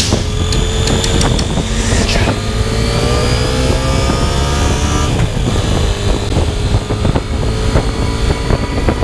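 KTM 890 Adventure's parallel-twin engine pulling under acceleration. Its pitch rises for a few seconds, then drops about five seconds in at a gear change and runs on steadily, over a low wind rumble.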